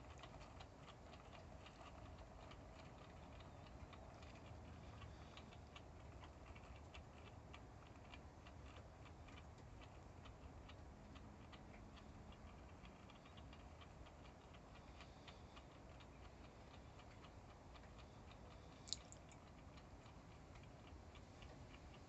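Faint, even ticking, a few ticks a second, from a small motorized display turntable slowly turning a model car. One sharper click near the end.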